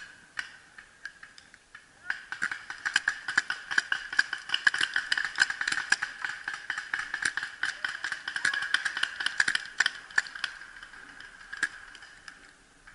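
Paintball markers firing in rapid strings of sharp pops. The pops start about two seconds in, come thick and fast, and thin out near the end, over a steady high hum.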